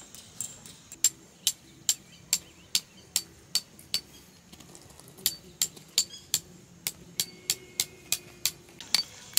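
Hammer driving a metal tent peg into gravel: a steady run of sharp, ringing metal-on-metal clinks, about two to three strikes a second, with a short pause about four seconds in before a slightly quicker run.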